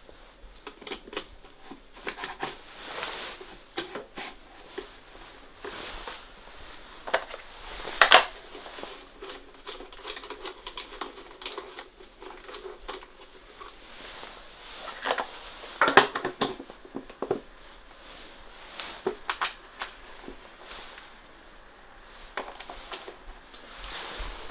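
Yamaha XS750 plastic airbox being handled and fitted back into the motorcycle's frame: scattered clicks, knocks and rustling, with louder knocks about 8 and 16 seconds in.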